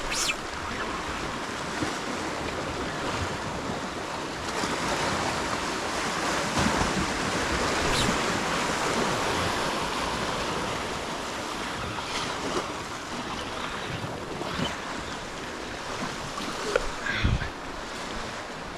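Ocean surf washing in, with wind on the microphone; the wash swells about four seconds in and eases after about ten. A short knock near the end.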